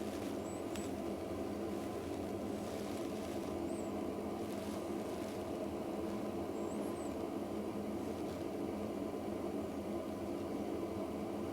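A steady low mechanical hum, with a few faint high chirps.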